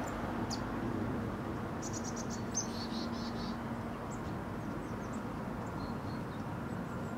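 Outdoor ambience: a steady hiss with a faint low hum, and a short run of high chirps about two seconds in.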